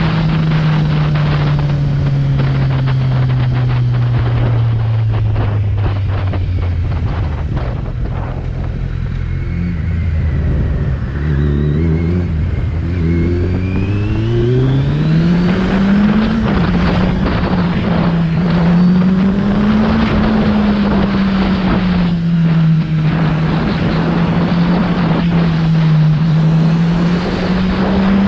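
Kawasaki Z900 inline-four motorcycle engine on the road: its note falls steadily for about ten seconds as the bike slows, rises sharply about halfway through as it accelerates, then runs up and down at speed, with wind rushing past.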